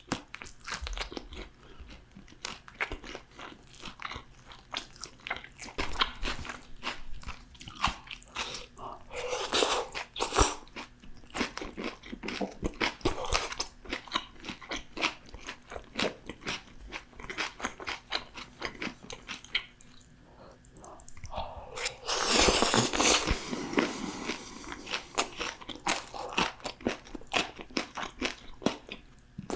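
Close-miked biting and chewing of crunchy fried food, made of many irregular crisp crunches. About 22 seconds in there is a louder, noisier stretch lasting roughly two seconds.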